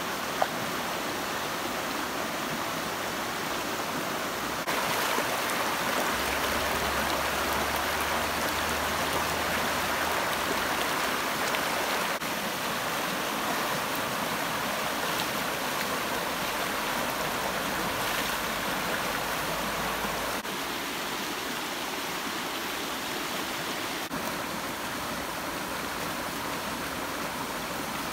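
Stream water rushing over rocks, a steady rushing noise that steps up and down in level a few times. A single short click about half a second in.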